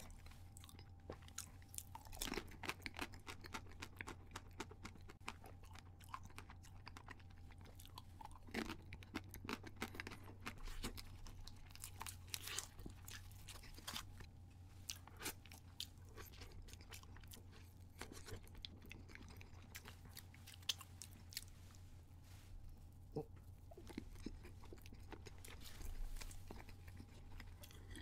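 Close-miked eating: a person biting and chewing a chocolate cupcake topped with marshmallow, with many sharp crackling clicks and wet mouth sounds over a low steady hum.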